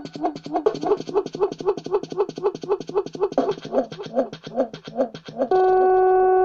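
Kawai MS710 electronic keyboard sounding a fast run of repeated synth notes, about four a second, each with a quick swoop in pitch. Near the end it changes to a steady held chord.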